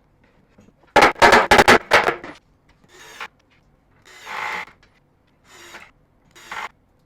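Hand work on wooden parts: a quick rattle of sharp clicks and knocks about a second in, then several short scraping, rubbing strokes.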